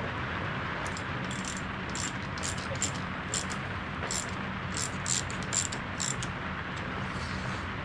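Light metallic clicks and clinks, about a dozen spaced irregularly, from small metal parts (a bolt and bracket) being handled and fitted by hand. A steady hiss runs behind.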